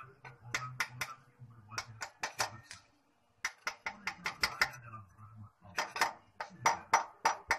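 Small hammer tapping metal on metal against a socket used as a driver, seating a new seal in its housing. Rapid sharp taps come several a second, with a brief pause about three seconds in.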